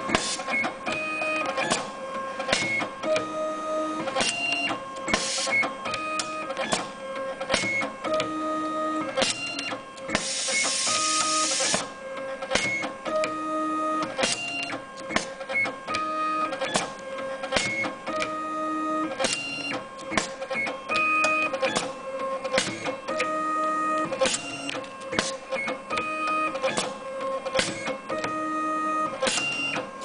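Automatic cable stripping and cutting machine (YH-BHT) running through its cycle. Its stepper motors whine in short held tones that step between pitches as they feed the wire, with sharp clicks as the tungsten-steel blades close to strip and cut, repeating every second or two. A burst of hiss comes about ten seconds in.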